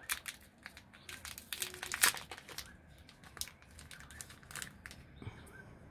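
Small plastic packet crinkling and crackling as it is handled and opened by hand, in an irregular run of crackles with the loudest about two seconds in.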